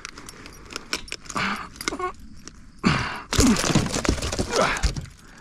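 Clicks, light metallic rattles and knocks of a frog lure's double hooks being worked free from a snakehead's lips. A louder burst of rustling and scraping handling noise comes about three seconds in.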